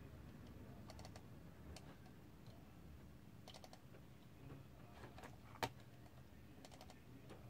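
Faint clicks of a computer mouse button, several coming in quick pairs like double-clicks, with one sharper click a little past halfway.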